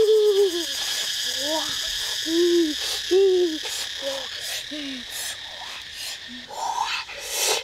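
A bird giving short hooting calls, about eight in irregular succession, each rising and falling in pitch, over a steady high insect drone. A brief rustle near the end.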